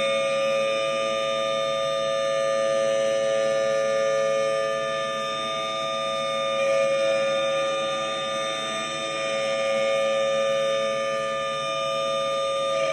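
Federal Signal Thunderbolt 1000T outdoor warning siren sounding a loud, steady tone held at full pitch, its level swelling and fading gently.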